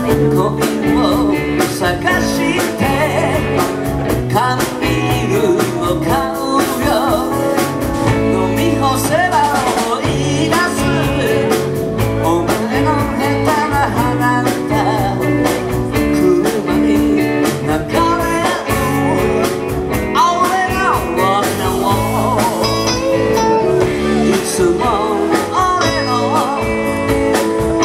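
Live rock band playing a song: electric guitars, bass, keyboard and drums with a steady beat.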